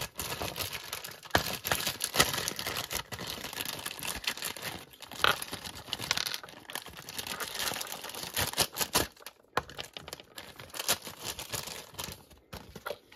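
Clear plastic parts bag crinkling and crackling as it is handled, with irregular sharp clicks.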